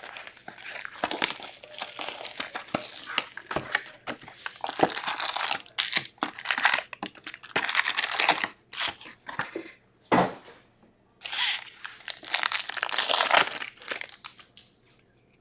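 Foil wrappers of hockey card packs crinkling and tearing as packs are opened, with the cards slid and flicked in the hands, in irregular bursts of rustling with short pauses. A single sharper knock sounds about two-thirds of the way through.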